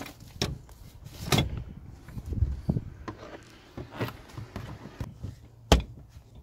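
Hard plastic trim cover in a car's cargo area being handled and pressed into place over the jack compartment: irregular clicks, knocks and rustling, with the sharpest knock near the end.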